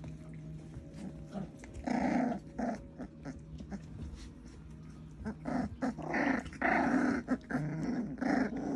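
Micro sheepadoodle puppies play-growling at each other as they mouth and wrestle. There is a short flurry about two seconds in, then near-continuous growling over the last few seconds.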